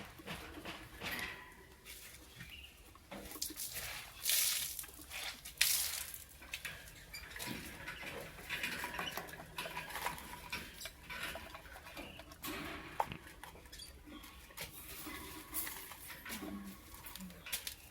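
Pet lovebirds chattering and moving about, with many small scratchy clicks and rustles throughout and a few louder bursts about four and six seconds in.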